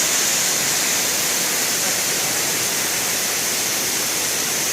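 Steady, loud rushing noise with no breaks, strongest in a high hissing band.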